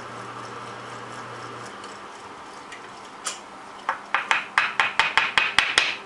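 Drill press with a 1¼-inch paddle bit running with a steady low hum after boring through a plastic wall plate; the hum stops about two seconds in. Near the end comes a fast run of about a dozen sharp clicks and taps, the loudest sounds, as the drilled plastic plate is handled.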